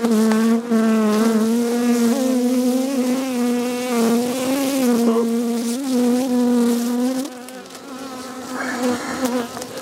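Buckfast honeybee buzzing close by with a steady, wavering hum that grows fainter after about seven seconds.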